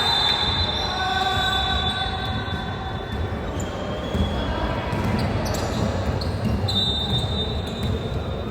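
Basketball game on an indoor court: the ball thumping on the floor and sneakers squeaking in high, thin squeals.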